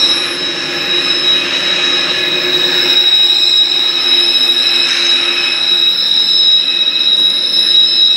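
BNSF freight train rolling past with its wheels squealing: steady high-pitched squeal tones over the noise of the moving cars.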